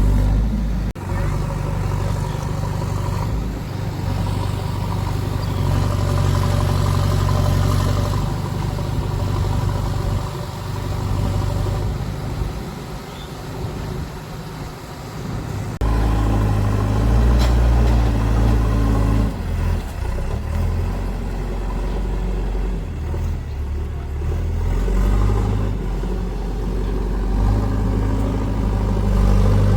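Heavy diesel engines of a backhoe loader and tractor running under load, the engine note shifting up and down several times and growing louder about halfway through.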